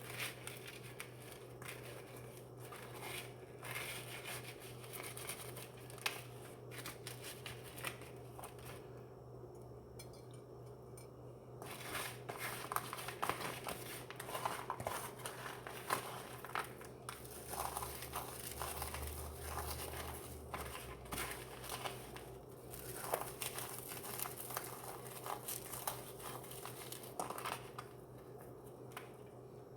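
Chicken tenderloins being dipped and rolled in crushed Cheetos: irregular crunching and crinkling of the dry crumbs, with a quieter pause about nine seconds in.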